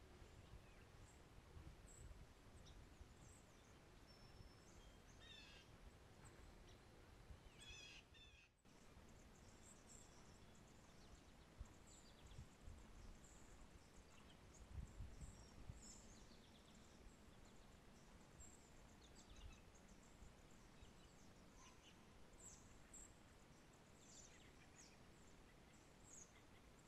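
Quiet ambience: a faint low rumble with scattered short, high bird chirps.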